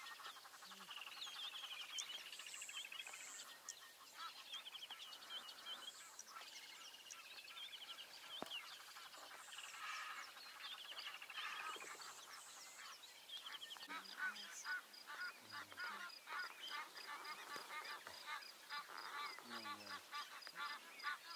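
Faint chorus of wild birds calling over one another: many short chirps, whistles and trills. About two-thirds of the way in, a fast, evenly pulsing high call joins them, about four pulses a second.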